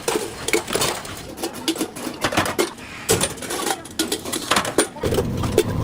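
Irregular light metallic clinks and taps, several a second, of metal pieces being knocked and handled in kettle making.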